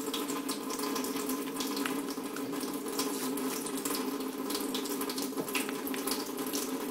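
Water running steadily, with light splashing crackle.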